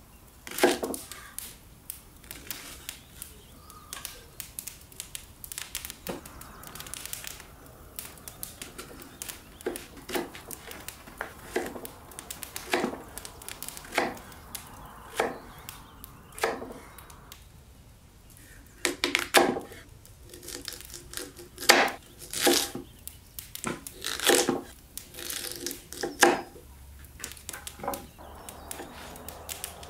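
Kitchen knife chopping onion and white radish on a wooden cutting board: sharp, irregular knocks of the blade hitting the wood, sparse at first, then a quicker, louder run of cuts in the second half.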